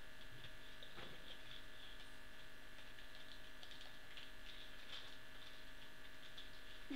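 Steady electrical hum with a few faint high steady tones, broken only by a few faint soft clicks.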